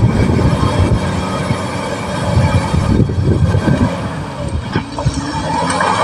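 Caterpillar D6R XL bulldozer's diesel engine running, with its steel tracks clanking and knocking as it works. A rising whine comes in near the end.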